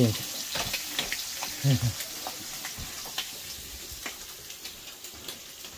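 Bacon frying, a steady sizzle with scattered crackles and pops.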